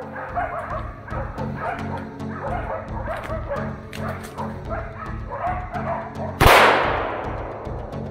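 Hunting laikas barking continuously at a bayed bear, over background music with a steady low beat. About six seconds in, a single loud rifle shot cracks and dies away over a second or so.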